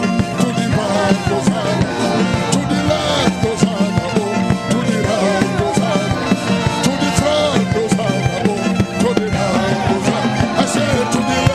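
Upbeat praise and worship music with a steady drum beat and a wavering melody line over it.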